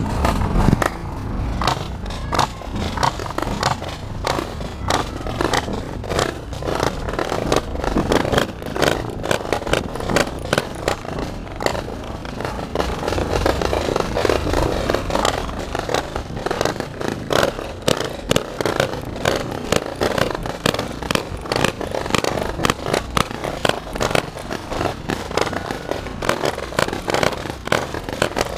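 Open railway car rolling slowly along the track, rattling and clattering with many irregular knocks over a steady low rumble, picked up by a camera mounted on the car itself.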